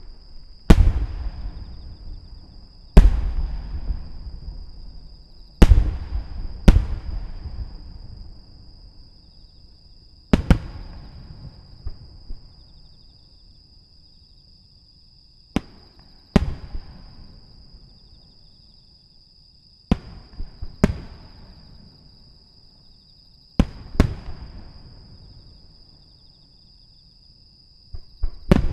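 Aerial firework shells bursting: about a dozen sharp booms, some in quick pairs, spaced irregularly a few seconds apart, each followed by a rolling rumble that fades over several seconds.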